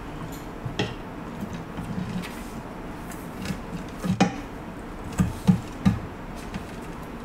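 Fork and spoon tapping and scraping against a plate while picking apart crispy fried fish. There are scattered light clicks, a sharp click about four seconds in, and three dull knocks soon after.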